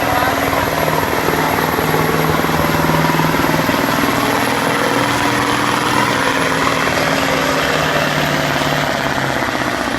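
1986 Mack Superliner's V8 diesel engine running hard and steady under heavy load, pulling a weight sled.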